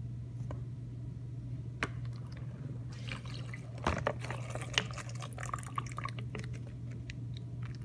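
Water poured from a plastic water bottle into a clear plastic bowl, splashing and dripping from about three seconds in, with a few sharp clicks of the bottle. A steady low hum runs underneath.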